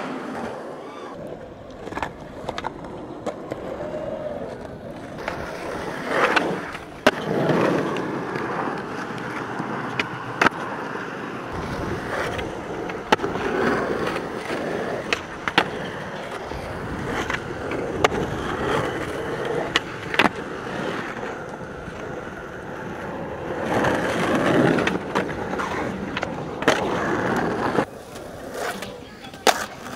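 Skateboard wheels rolling over a smooth skatepark surface, the rumble swelling and easing, with repeated sharp clacks of the board's tail popping and landing.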